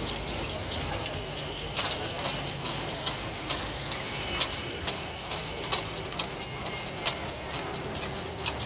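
Flat metal spatula clinking and scraping against a steel karahi as mutton keema is stirred: sharp, irregular clacks about every half second to second, over a steady sizzle of the mince cooking in fat.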